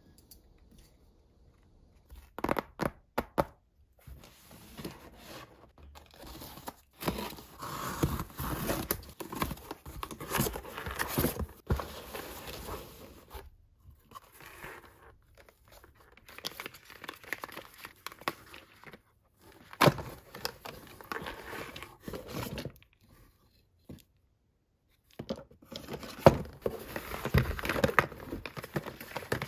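Cardboard box and packaging being handled: rustling, crinkling and scraping as small paper product boxes are lifted out and set down, with a quick run of sharp clicks about two to three seconds in.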